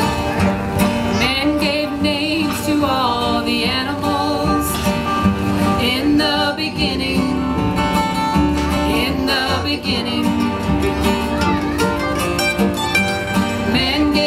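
Acoustic bluegrass band playing a song's opening: mandolin, banjo, acoustic guitars and upright bass.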